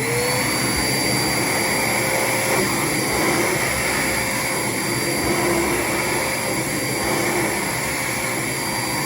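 DeWalt wet/dry shop vacuum switching on: its motor's whine rises in pitch for a moment at the start, then runs steadily over a loud rush of air as it sucks up sander dust.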